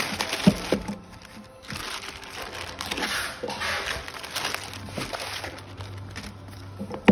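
Plastic courier mailer crinkling as it is handled and torn open along its edge, with a sharp knock about half a second in.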